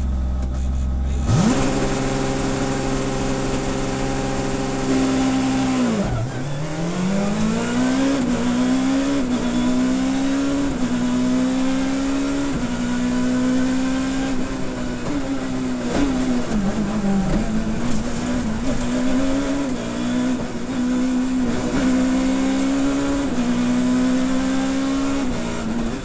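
Abarth Grande Punto S2000 rally car's 2.0-litre four-cylinder engine heard from inside the cabin. It idles, then the revs jump about a second in and are held high for the launch. The revs dip sharply as the car pulls away, around five or six seconds in, and then climb through a quick run of upshifts, each rise in pitch cut by a short drop, with a deeper dip in revs around sixteen seconds before it pulls hard again.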